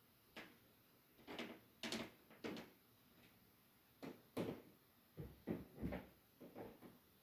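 An irregular series of short, faint knocks and scrapes, about a dozen, bunched in the middle and latter part.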